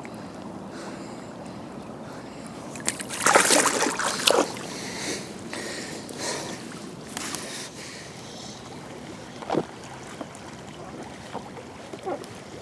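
River water moving steadily around a wading angler, with a loud splash about three seconds in and a few smaller splashes later, as a landed asp is handled and let go in the water.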